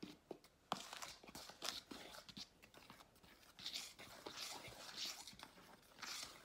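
A fork stirring flour, salt and sugar together in a large mixing bowl: soft, repeated scraping and swishing strokes through the dry flour, with a few light clicks of the fork against the bowl.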